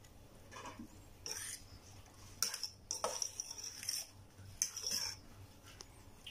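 A fork stirring thick shrimp okoy batter in a stainless steel pan, scraping against the pan in about four short spells.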